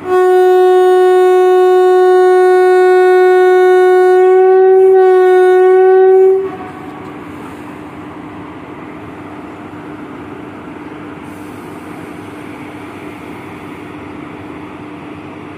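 WAP-4 electric locomotive's horn sounding one long, loud blast of about six seconds, wavering slightly in pitch near the end before cutting off sharply: the horn given as the train departs. After it, the locomotive's steady hum goes on.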